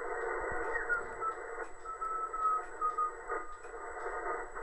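HF amateur radio transceiver's receiver audio being tuned across the 20-metre band: a steady band hiss with short whistling tones of signals that appear, hold briefly and slide in pitch as the tuning dial turns.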